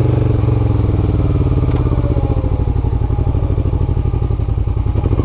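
2002 Suzuki SV650S V-twin motorcycle engine through a Delkevic exhaust, its pitch falling as the bike slows, then running low and pulsing near idle.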